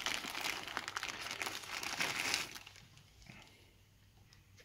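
Thin plastic wrapping crinkling in the hands as a coiled USB cable is unwrapped, for about two and a half seconds. It then drops to faint handling with a couple of light clicks.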